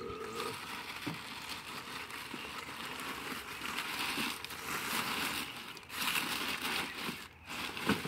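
Plastic bags crinkling and tools rustling as a hand rummages through a plastic toolbox, with a few light knocks.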